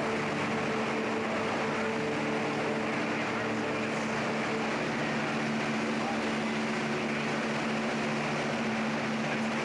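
Steady machinery drone inside a large locomotive repair shop: an even rushing noise with a low, steady hum underneath.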